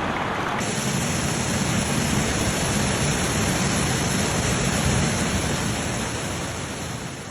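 Steady rushing noise of rain or floodwater. It changes abruptly to a brighter hiss about half a second in, then fades out near the end.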